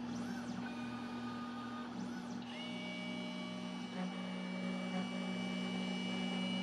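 Snapmaker 2.0 CNC module's stepper motors whining as the carriage travels, in two rising-then-falling sweeps, then a steady high two-note whine from about two and a half seconds in, over a low machine hum with a few faint ticks.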